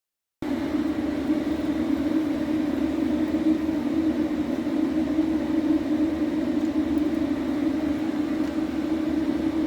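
Small electric motor and gearing running steadily with an even hum, cutting in abruptly about half a second in.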